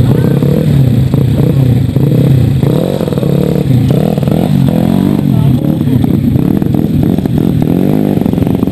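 Several dirt bike engines idling and revving, their pitch rising and falling again and again as the bikes pull away one after another.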